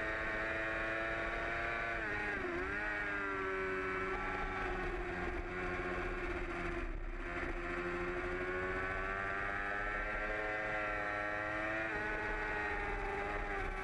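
2008 Yamaha R6's inline-four engine running hard at high revs during a race, heard from on the bike, its pitch dipping briefly about two seconds in and then climbing back and holding with slow swells. Wind rush sits underneath.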